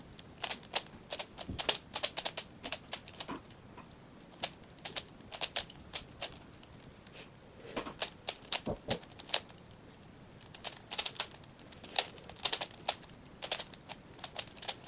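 Plastic clicking of a 5x5 Rubik's cube being turned, layers snapping through quick twists in irregular bursts with short pauses.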